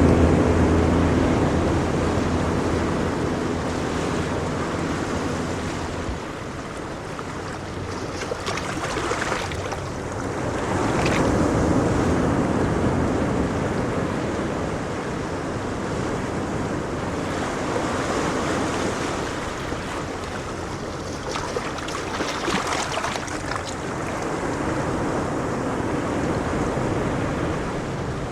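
Ocean waves breaking and washing ashore, surging in repeated swells every few seconds. A low steady hum is also heard at the start and fades out over the first few seconds.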